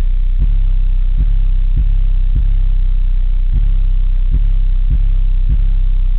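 Car subwoofers playing a bass-heavy rap beat very loud: a deep steady bass drone with a kick hitting about every 0.6 to 0.8 seconds and no vocals.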